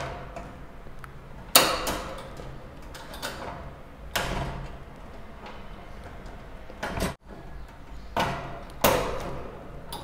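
Wire budgie cage door and bars being worked loose by hand: about five sharp metallic clicks and rattles, a second or more apart, as the small door held on by a bit of wire is pried off.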